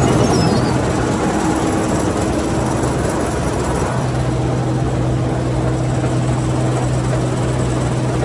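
Case IH 2388 combine harvester running steadily under a continuous machine drone. Its low hum fades about a second in and comes back strongly about four seconds in.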